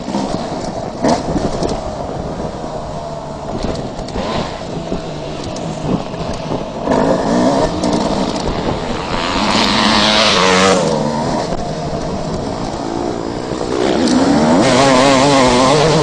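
Single-cylinder two-stroke engine of a Suzuki RM250 motocross bike, ridden hard and heard from on the bike: the revs rise and fall as the throttle is worked, climbing sharply about two-thirds through and again near the end.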